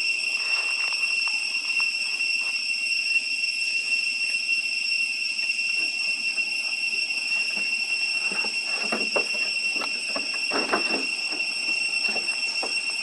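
Steady high-pitched drone of cicadas that never lets up, with a few faint short scuffs and rustles in the latter part.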